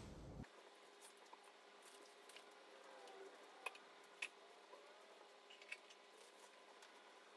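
Near silence, with faint squishing and a few small clicks from thick soap batter being squeezed out of a piping bag.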